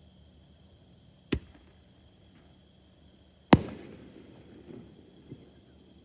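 Two firework bangs, a smaller one about a second in and a much louder one a couple of seconds later. The louder bang trails off in a rumbling echo with a few faint crackling pops, over a steady high chirring of insects.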